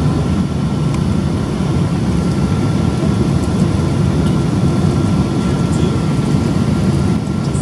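Steady cabin noise of a Boeing 777-200 in flight, heard from a window seat over the wing: a low rumble of the jet engines and airflow, with a thin steady whine above it.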